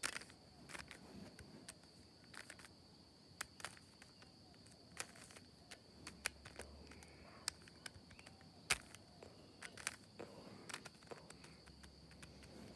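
Rubik's cube being twisted by hand: irregular sharp plastic clicks as its layers are turned, spread out with gaps between them, the loudest a little past two-thirds of the way through.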